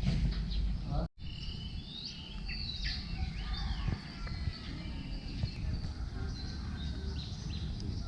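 Birds chirping, with many short rising and arching calls, over a steady low wind rumble on the action camera's microphone; the sound cuts out abruptly for a moment about a second in.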